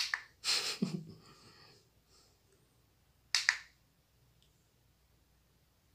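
A few sharp clicks spaced a few seconds apart, with a short rustle just after the first: the mode button on a Christmas-light controller being pressed to cycle its blink patterns.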